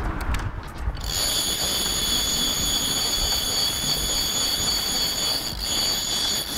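Conventional fishing reel's drag screaming as a hooked bull shark strips line, a steady high-pitched whine starting about a second in.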